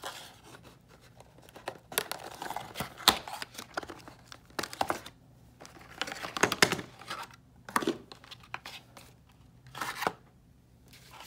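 Hands unboxing a small cardboard retail box and its clear plastic tray: irregular rustling, tearing and crinkling of cardboard and plastic packaging, with sharp little clicks and scrapes.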